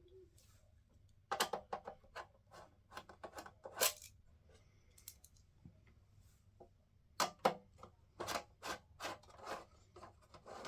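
Screwdriver undoing the screws that hold a desktop PC's power supply in its case: two runs of small metallic clicks and clinks, the first starting about a second in, the second about seven seconds in.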